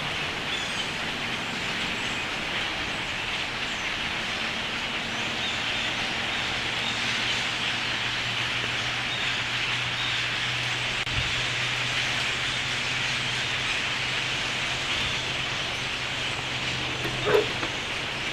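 Many birds calling at once in a dense, continuous chatter over a steady low hum, with one short louder sound near the end.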